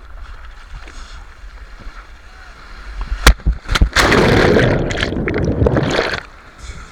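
Wind rumbling on the microphone, then a few sharp knocks about three seconds in. Seawater then splashes and rushes loudly for about two seconds before cutting off.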